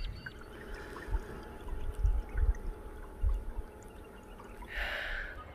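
Water sloshing and trickling around a canoe as it is paddled along the river, with a few dull low thumps and a brighter splash near the end.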